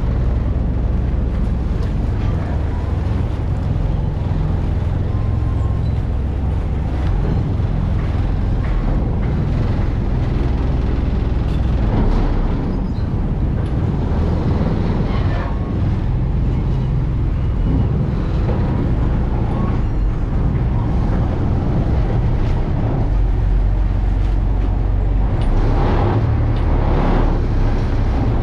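A boat's engine runs steadily as a deep, constant rumble, with water and wind noise on top.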